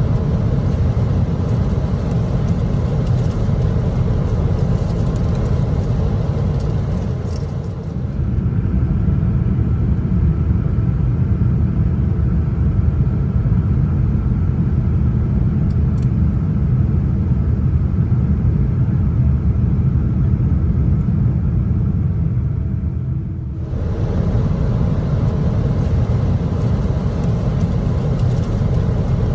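Steady low rumble of cabin noise aboard a Boeing 777-200 airliner: engine and airflow noise heard from the economy cabin. The character of the noise changes abruptly twice, about eight seconds in and again about six seconds before the end.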